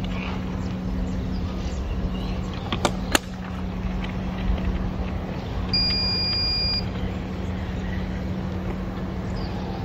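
Two sharp tennis-ball knocks about a third of a second apart, around three seconds in, over a steady low hum. A single high electronic beep lasting about a second sounds just past the middle.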